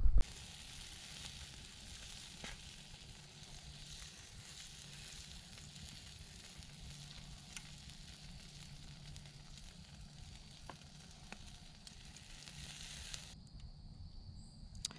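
Chicken wings sizzling on a grill over campfire coals: a steady hiss with a few sharp pops. It cuts off suddenly about thirteen seconds in.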